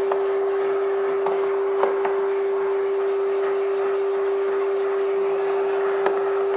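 Vacuum cleaner running with a steady, even hum as its brush nozzle sucks dust out of a plastic engine air-filter housing, with a few light knocks of the nozzle against the plastic.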